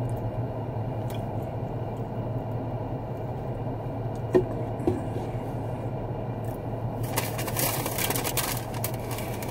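Steady low hum of a car running, heard inside the cabin, with a couple of small knocks about four seconds in. From about seven seconds on, food packaging rustles and crinkles as it is handled.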